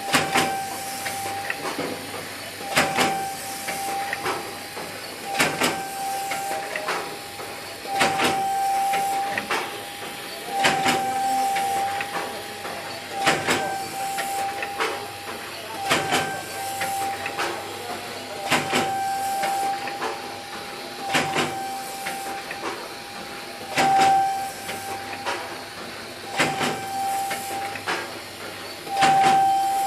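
Soap packaging and labelling machine running through its cycle: a sharp clack about every two and a half seconds over a steady whine and a hiss.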